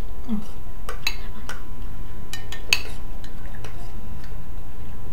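Spoons clinking against a glass serving dish and plates as food is served, a handful of short separate clinks spread through, over a steady low hum.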